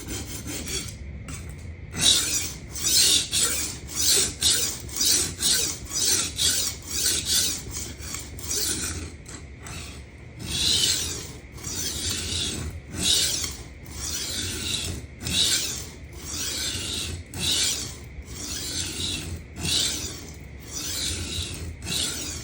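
Kitchen knife steel being ground back and forth on a coarse 140-grit Atoma diamond sharpening plate: rhythmic hissing scrapes, about two strokes a second at first, then longer, slower strokes from about halfway. The coarse grinding is removing chips from the edge and raising a burr.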